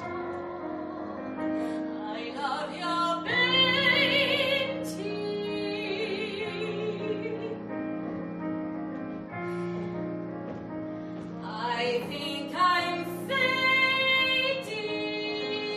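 A woman sings a musical-theatre song with a strong vibrato, accompanied by piano. Sung phrases come about three seconds in and again about twelve seconds in, with the piano carrying on alone between them.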